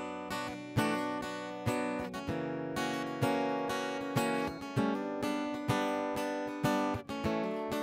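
Acoustic guitar strumming chords alone as a song's intro, with a stronger stroke about once a second.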